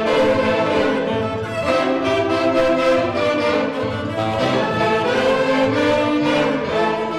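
Massed saxophones with violins, clarinet and harp playing an instrumental tune together.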